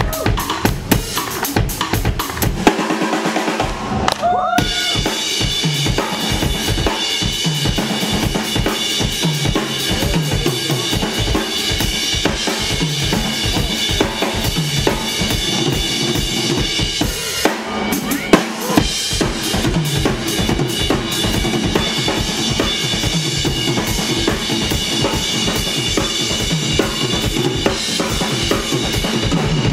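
Live blues band playing: a drum kit keeps a steady beat under electric guitars and bass guitar. The bass and kick drop out for about a second and a half, about three seconds in.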